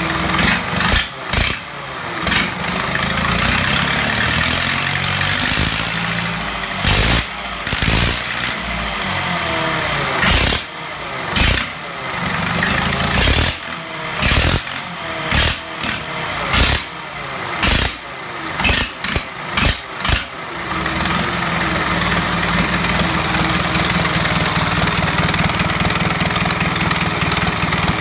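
McCormick D-440 tractor diesel engine, just started and running unevenly. Its speed surges up and down and it stumbles about once a second. About two-thirds of the way through it settles into a steady idle.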